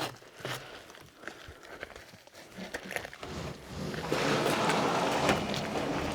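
Handling noises with scattered knocks, then from about four seconds in a loud, continuous rustling and crinkling, like greenhouse plastic sheeting being pulled and bunched up.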